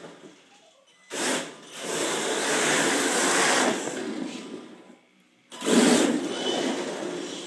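HPI Pro-D RC drift car's electric motor and drivetrain whirring in throttle bursts as it drives and slides on a hard floor: a short burst about a second in, a longer run that fades out, then a loud burst about five and a half seconds in.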